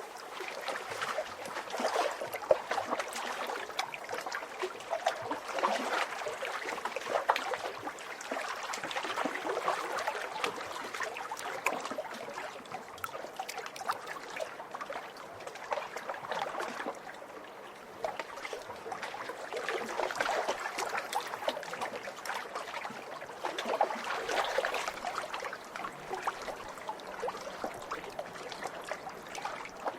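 Small lake waves lapping and splashing at the water's edge, a continuous run of little splashes that swells and eases every few seconds.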